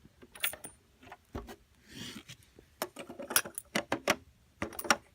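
Coins and LEGO plastic parts clicking and clacking irregularly as the collected coins are taken out of a LEGO vending machine, with a soft rubbing sound about two seconds in.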